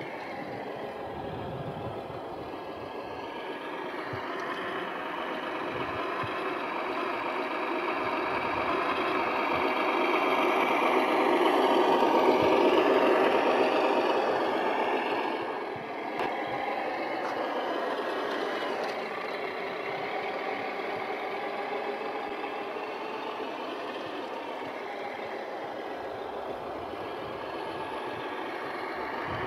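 Radio-controlled military 4x4 truck towing a trailer, its motor and gears whining steadily as it drives on asphalt. It grows louder as it passes close about twelve seconds in, then settles back.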